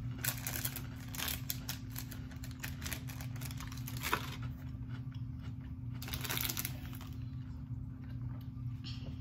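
Snack packaging crinkling and rustling in bursts, heaviest about a second in and again around six seconds, over a steady low hum.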